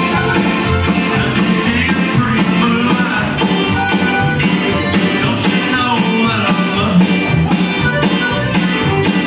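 A live Tex-Mex band plays with a steady drum beat, electric guitar, keyboard and trumpet, and an accordion in the lineup.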